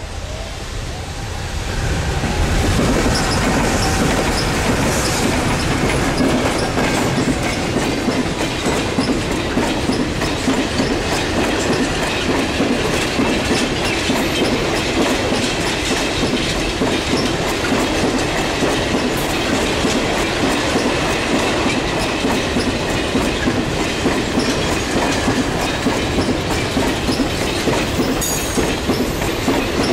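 Container freight train passing close by: the electric locomotives go by about two seconds in, then a long string of container wagons rolls past with a steady rumble and rapid clickety-clack of wheels over the rail joints. A brief high wheel squeal comes near the end.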